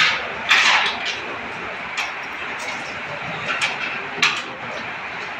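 Sharp wooden clicks on a carrom board, the striker and coins knocking, a few times with the clearest about four seconds in. There is a short hiss just after the start.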